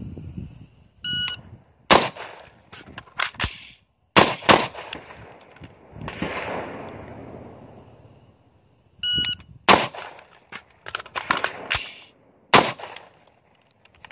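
An electronic shot timer beeps, then an AR-15 rifle fires a string of shots. About eight seconds later the timer beeps again and another string of rifle shots follows, fired in a timed magazine-change drill.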